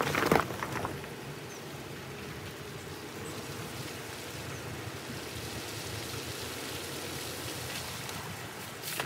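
Steady hiss of rain falling, with a few sharp taps in the first second.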